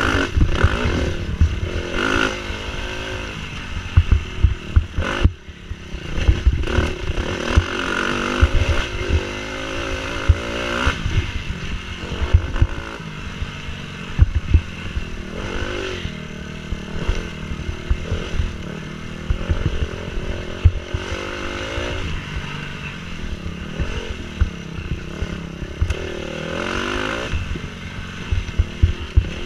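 Dirt bike engine revving up and down as it is ridden along a rough wooded trail, with frequent knocks and clatter from the bumps.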